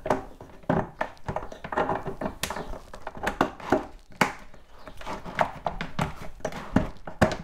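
Copper pipe manifold knocking and clattering against the bottom of a plastic fermenting bucket as it is pushed into place by hand: a run of irregular knocks with a hollow ring from the bucket.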